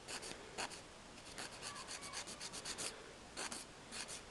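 Hand nail file rasping over a gel nail in quick back-and-forth strokes, several a second. It is filing down lifted gel on one side of the nail.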